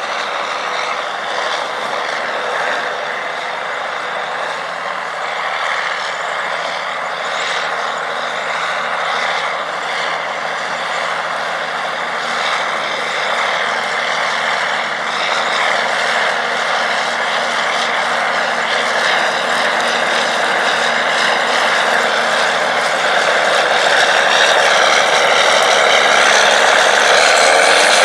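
Steiger PTA-325 tractor's Caterpillar 3406 six-cylinder turbocharged diesel working steadily under load while pulling a strip-till bar, growing gradually louder as the tractor comes closer.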